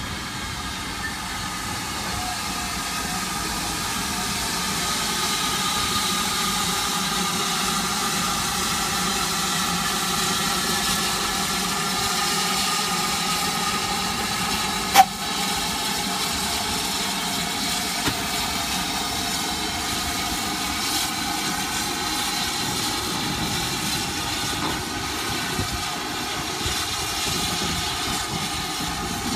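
GWR 'Large Prairie' 2-6-2 tank engine No. 4144 and its loose-coupled goods wagons rolling slowly past, with a steady hiss of steam over the running of the wheels on the rails. One sharp knock about halfway through.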